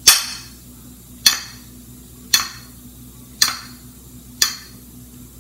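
A knife blade clicking against a china plate five times, about once a second, as it cuts down through a banana into slices, each click ringing briefly.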